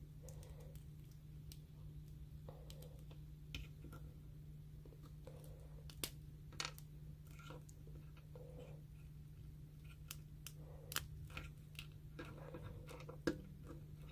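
Faint, scattered plastic clicks and taps as S.H. Figuarts action figures are handled, a swappable hand fitted and the arms posed, with a few sharper clicks, the loudest near the end. A steady low hum runs underneath.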